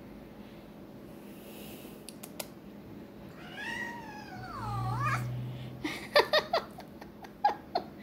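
Domestic cat giving one long, wavering meow about three seconds in. A quick run of sharp clicks and taps follows near the end, louder than the meow.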